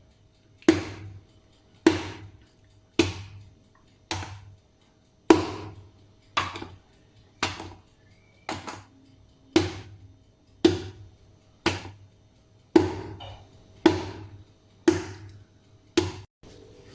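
A cake tin full of batter being rapped down on the counter again and again, about once a second, settling the batter and knocking out air bubbles before baking. Each knock is sharp, with a short ring.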